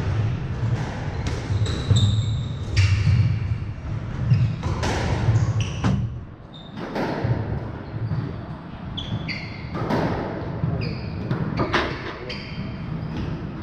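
A squash rally: the ball is struck by rackets and smacks off the court walls and floor in irregular sharp knocks, while sneakers squeak briefly and often on the wooden floor.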